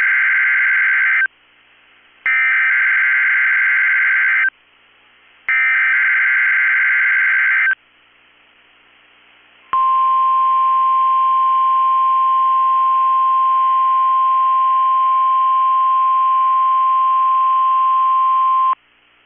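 NOAA Weather Radio emergency alert signal opening a Required Weekly Test. It plays three bursts of SAME digital header data, about two seconds each and a second apart, then the steady 1050 Hz warning alarm tone, held for about nine seconds before it cuts off.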